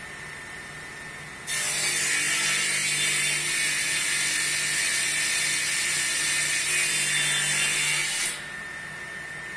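Table saw cutting through a wooden board. The blade runs freely with a steady hum and a thin whine, then bites into the wood about a second and a half in. The loud cutting noise holds steady for about seven seconds and stops sharply near the end, when the blade runs free again.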